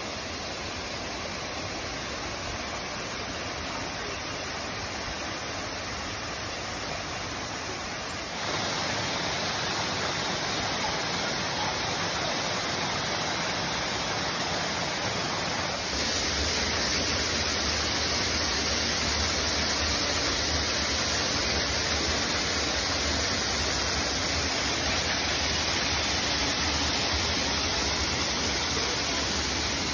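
A waterfall's steady rush of falling water, jumping louder suddenly about 8 seconds in and again about 16 seconds in.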